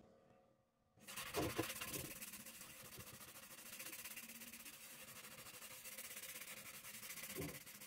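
Stain-removing scrubbing sponge rubbed back and forth over a stained, perforated metal pan, a steady scratchy scrubbing that starts about a second in.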